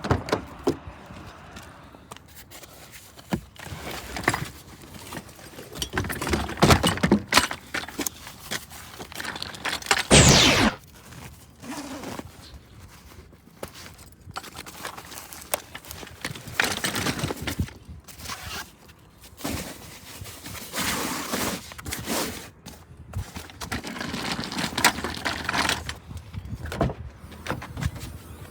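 Camping gear being handled: irregular knocks, clinks, rustles and scrapes, with a louder scraping clatter about ten seconds in.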